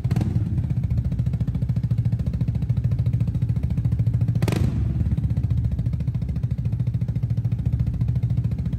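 Vespa GTS 300 single-cylinder four-stroke engine idling through a Termignoni aftermarket exhaust, a steady, rapid low pulsing. A short sharp sound cuts through just after the start and again about four and a half seconds in.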